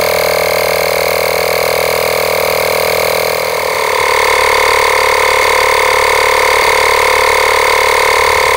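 Makita cordless tire inflator's compressor running steadily while pumping up a tire deflated to 15 PSI, its tone shifting slightly about four seconds in; it cuts off suddenly at the end.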